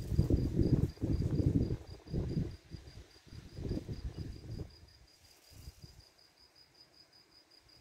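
A cricket chirping in a steady, high, evenly pulsed trill, about six or seven pulses a second. Under it, irregular low rumbling is the loudest sound and dies away about five seconds in.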